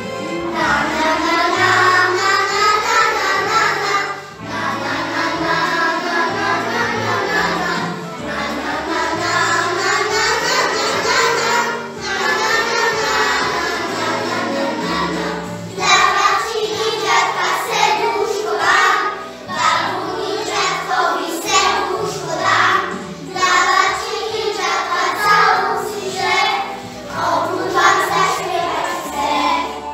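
A group of young children singing together in unison over instrumental musical accompaniment.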